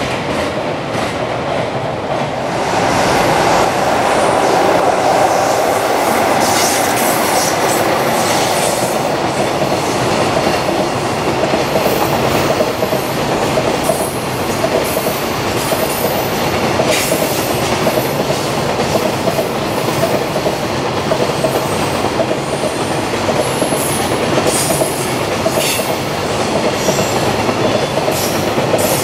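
Long freight train of container wagons running past on the tracks: a steady rolling noise with the clickety-clack of wheels over rail joints. Short high-pitched wheel squeals come now and then, mostly in the second half.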